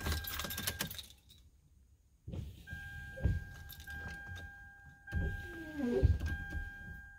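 Keys jangling as the ignition of a Toyota Sienna minivan is switched on. Then the dashboard warning chime sounds a steady tone broken by short gaps about every second, with a couple of dull thumps.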